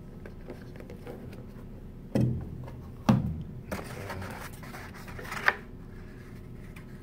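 Cardboard box and molded paper-pulp insert being handled: two knocks about a second apart, then scraping and rustling that ends in a sharp tap.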